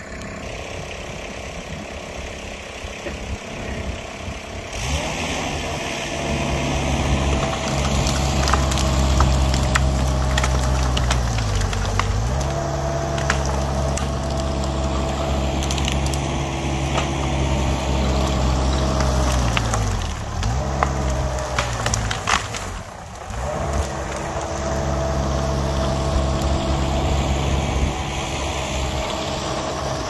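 Vermeer mini skid-steer's engine revving up about five seconds in and running under load as it pushes a brush pile, its pitch dipping twice as it takes the strain, with branches cracking and snapping.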